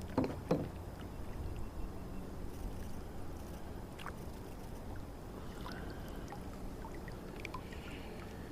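Kayak on the water: two sharp knocks against the hull just after the start, then low, steady water and handling noise.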